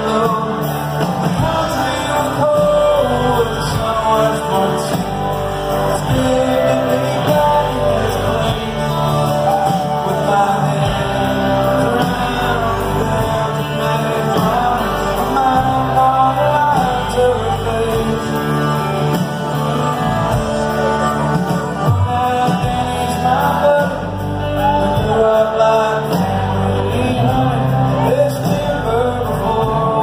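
Live country band with a male lead singer singing over acoustic and electric guitars, bass, drums and fiddle, heard through the reverberation of a large hall.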